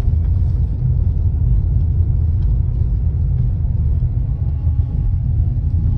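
Hurricane-force wind roaring, a loud, steady low rumble.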